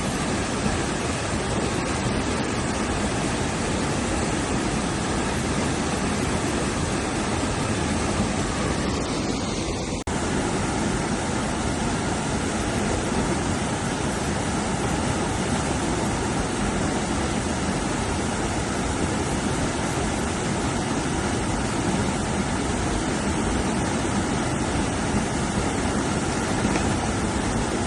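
Steady rush of fast-flowing river water, with a brief dip in level about ten seconds in.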